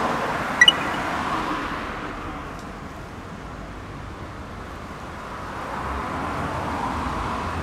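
Road traffic on a multi-lane city street: a steady rush of tyre and engine noise that eases off in the middle and swells again as a car drives past near the end. About half a second in, two quick high beeps.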